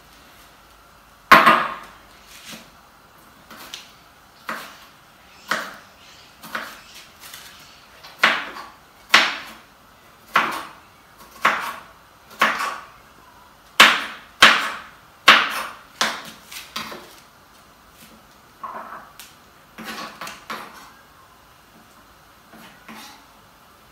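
Kitchen knife chopping on a wooden cutting board: an uneven run of sharp knocks, roughly one a second, that stops a couple of seconds before the end.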